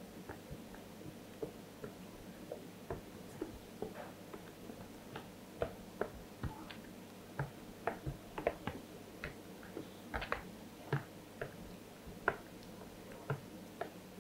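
A spoon clicking and scraping against a plastic bowl as ground agushie (melon seed) is mixed with water into a paste: short irregular clicks, about one or two a second.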